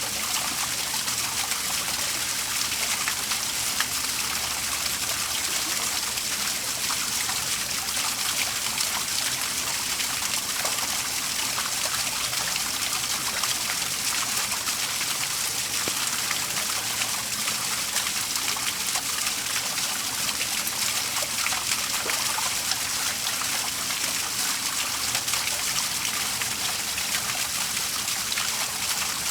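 Waterfall splashing and trickling steadily, a continuous even hiss of falling water strongest in the high range.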